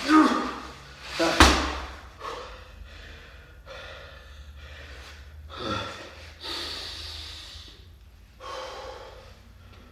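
A man breathing hard in loud gasps and puffs after heavy 260 lb sandbag lifts. A single heavy thud about a second and a half in, the loudest sound, as the sandbag is dropped onto the floor.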